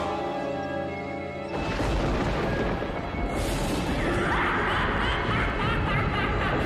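Cartoon background music, joined about one and a half seconds in by a loud rumbling crash of thunder that carries on under the music.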